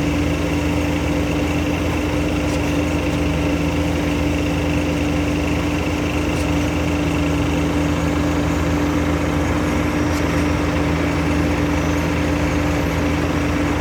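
Engine-driven concreting machinery running steadily at constant speed, a continuous engine hum with a strong steady tone.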